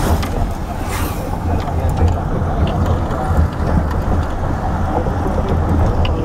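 Steady engine and road noise heard from inside a moving car's cabin: a constant low rumble with tyre noise.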